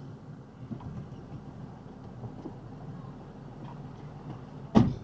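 Box truck's cab door being slammed shut near the end: one loud, sharp thump with a short ringing tail. Before it, faint clicks and rustling over a steady low hum in the cab.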